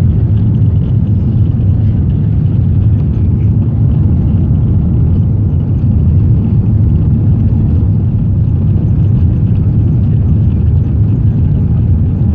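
Steady low rumble inside an Airbus A380 passenger cabin as the airliner rolls along the runway after landing.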